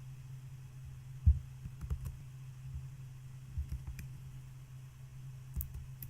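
A few scattered clicks at a computer over a steady low electrical hum, the loudest a single thump about a second in.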